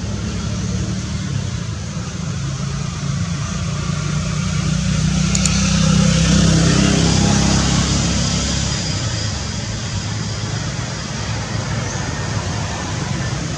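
Road traffic noise: a steady low rumble that swells as a vehicle passes, loudest about six seconds in.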